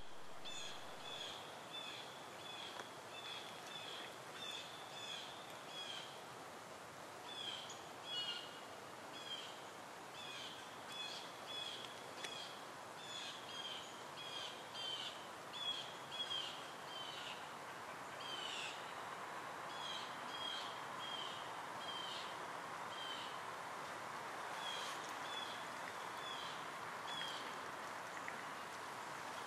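Small bird chirping, short high notes repeated about twice a second and then more sparsely, over a steady background hiss.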